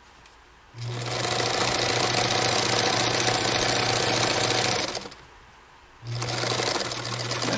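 Early-1970s Bernina 830 Record sewing machine stitching a seam at a steady speed, with a constant motor hum under the needle's rapid clatter. It runs for about four seconds, stops for about a second, then starts sewing again.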